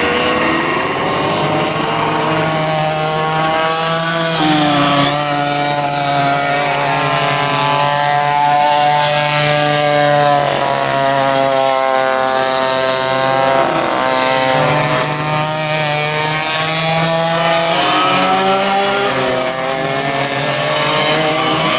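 Vintage go-kart engines running on track, several karts at once, their pitch climbing as they accelerate and dropping off as they slow for corners, again and again.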